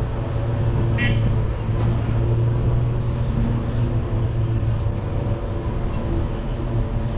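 Engine and road noise of a car driving slowly, heard from inside the car: a steady low drone, with one brief high chirp about a second in.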